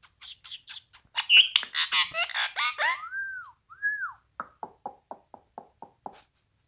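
Indian ringneck parakeet calling: short chirps and dense chattering calls, then two whistles that rise and fall, followed by a run of short clicks at about four a second.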